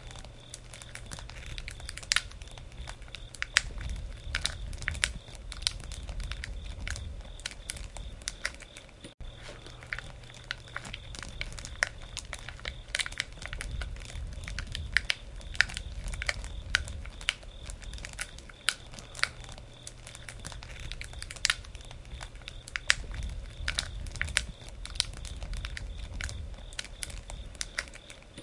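Wood campfire crackling, with frequent irregular sharp pops and snaps over a low, uneven rumble of the burning fire.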